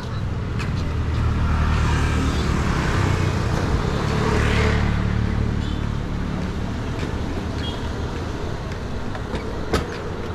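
A motor vehicle passing close by: its engine rumbles low and steady while tyre and engine noise swell over the first few seconds and then ease off. A single sharp click comes near the end.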